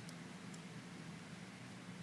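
Faint metallic ticks of a lock pick working the pins of a small brass padlock under tension, two light ticks about half a second apart, over a low steady hum.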